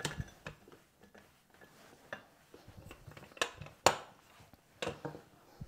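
Light knocks and clicks from rolling out pie crust dough on a countertop with a rolling pin: about half a dozen sharp taps spaced irregularly.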